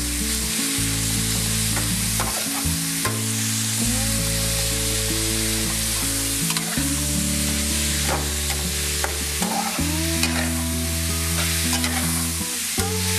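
Sliced pork sizzling as it is stir-fried in a hot, oiled nonstick pan over high heat, with the steady hiss of frying and a metal spatula scraping and tapping the pan as the meat is turned. Low, sustained background music notes sit underneath.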